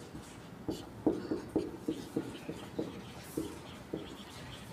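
Marker pen writing on a whiteboard: a run of short, irregular strokes and taps of the tip on the board.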